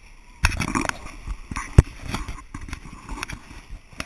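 Water splashing against a heeled sailboat's hull and over bare feet trailing in the bow wave, with a burst of splashing about half a second in and several sharp knocks, the loudest a little under two seconds in.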